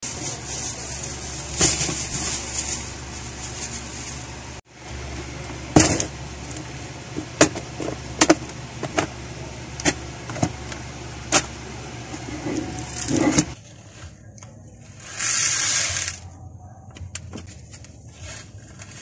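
Plastic storage boxes and small plastic beads being handled: scattered clicks and light knocks, then near the end a short hissing rush of small beads poured into a clear plastic organizer compartment.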